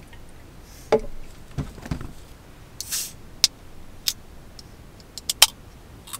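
Handling sounds of a soda can and small items: scattered knocks and clicks, a short hiss about three seconds in, and a quick run of sharp clicks near the end.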